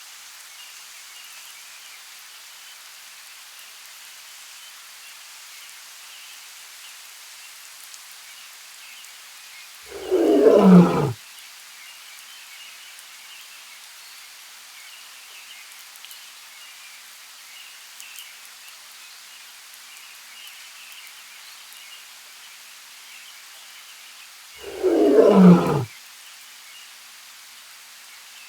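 A big cat roars twice, about fifteen seconds apart. Each roar is one falling call about a second long. A steady faint hiss of outdoor ambience runs underneath.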